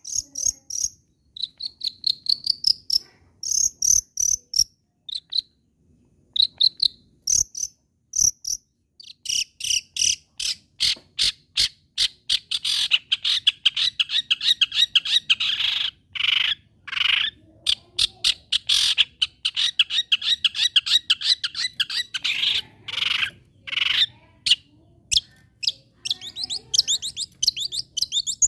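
Long-tailed shrike (cendet) singing hard, a rapid chattering song of sharp clicking notes and short trills. It starts in short separate phrases, and about nine seconds in runs into a long unbroken stretch of harsh, scratchy chatter before breaking into phrases again near the end.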